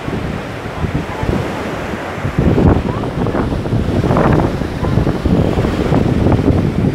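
Wind buffeting a phone's microphone: a loud, rough rumble that gets louder about two and a half seconds in.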